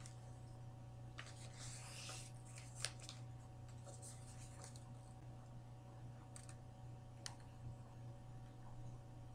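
Faint sounds of a picture book being handled: a papery swish of a page turning about a second in, then a few light taps and clicks, the sharpest about three seconds in, over a low steady hum.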